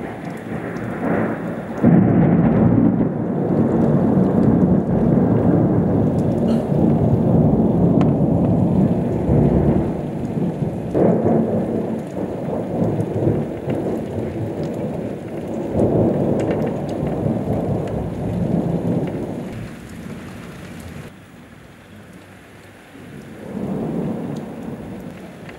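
Thunder from nearby lightning rolling in long rumbles over steady rain. It breaks in suddenly about two seconds in and swells again several times.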